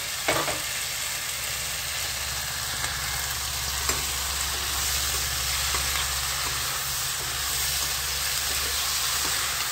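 Taro and green beans sizzling steadily in hot oil in a steel kadai, with a steel spoon stirring and clicking against the pan a few times. A low steady hum runs underneath.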